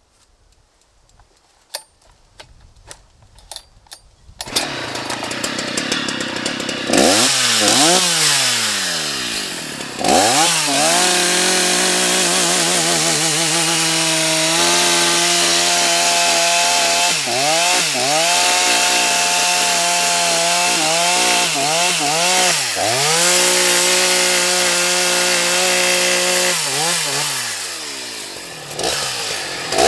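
Husqvarna 181 SE two-stroke chainsaw: after a few faint clicks it comes in about four seconds in and is revved up, then runs at high revs, its engine speed dropping and climbing back several times, as when cutting wood.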